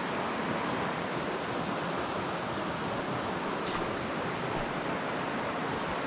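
Mountain stream running steadily over rocks and riffles, an even rushing of water, with one brief click a little past halfway.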